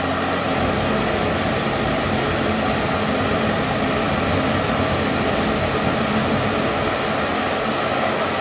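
MSR PocketRocket 2 canister-stove burner running with a steady, loud rushing hiss of burning gas, fed through a remote hose adapter from the canister, while the flame is turned between low and high at the canister valve.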